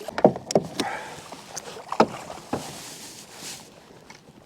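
A few sharp, hollow knocks on a plastic kayak hull, clustered in the first two and a half seconds and quieter after, as gear and the angler's movements bump the boat while a hooked trout is fought.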